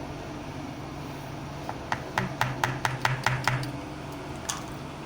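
A quick, even run of about nine light taps, about five a second, with one more a second later, over a steady low hum.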